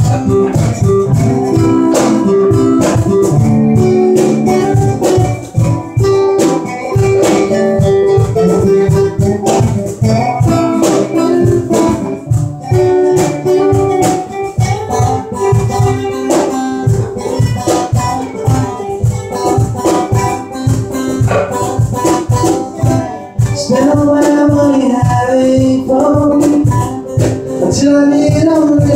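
Live acoustic song: a strummed acoustic guitar keeps a steady, busy rhythm with other instruments, and a voice sings over it, most clearly near the end.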